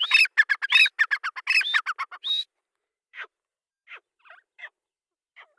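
Black francolin calling: a fast run of harsh, ringing notes for about two and a half seconds, then a few faint, scattered calls.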